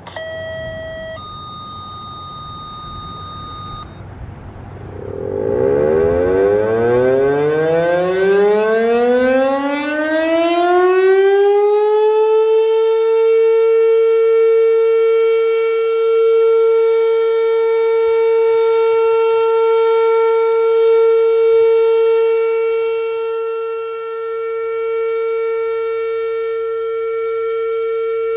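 Fedelcode Model 5 eight-port outdoor warning siren winding up on a full-alert test: a rising wail climbs steeply in pitch for several seconds, then holds one loud steady tone, swelling and easing slightly. Two short electronic beep tones come just before the wind-up.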